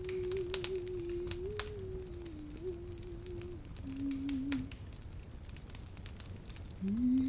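A woman humming a slow, soft lullaby melody: a long wavering note that steps down and breaks off about halfway through, then comes back near the end on a rising note. Faint scattered crackles and a low rumble sit underneath.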